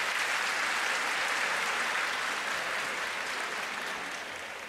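Audience applauding, strongest in the first two seconds and slowly fading toward the end.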